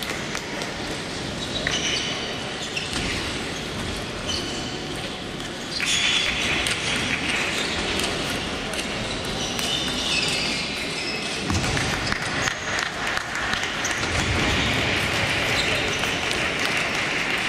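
Table tennis hall ambience: celluloid balls clicking off tables and bats in quick, irregular taps from many tables at once, with voices in the background.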